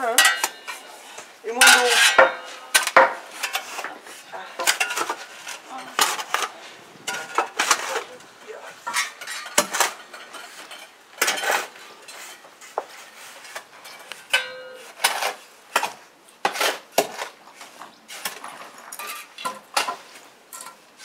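Irregular clinks, scrapes and knocks of masonry work: shovels scraping sand in a wheelbarrow and stones being handled and set down.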